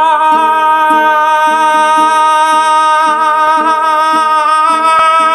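A man singing one long, loud held note, with a ukulele strummed about three times a second beneath it.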